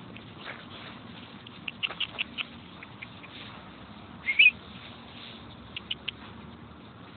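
Puppies at play giving short, high-pitched squeaks, with a cluster about two seconds in. A louder wavering squeal comes about four and a half seconds in, and a couple more quick squeaks near six seconds.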